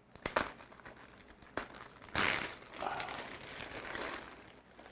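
Packing material crinkling and rustling as a box of military surplus ammunition is unpacked by hand, with a few sharp clicks in the first second or so and the loudest rustle about two seconds in.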